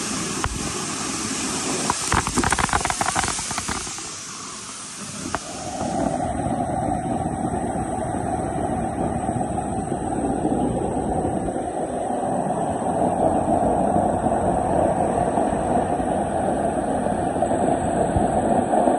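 Water rushing from a sheared-off fire hydrant, a continuous heavy torrent with spray splattering down. About six seconds in, the sound turns duller and more even.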